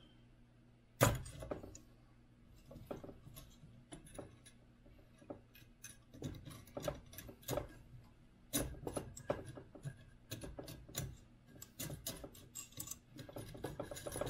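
Scattered clicks, taps and knocks of hands handling the bed plate and wiring of a small 3D printer, with one sharper knock about a second in and the knocks coming thicker in the second half. A faint steady low hum runs underneath.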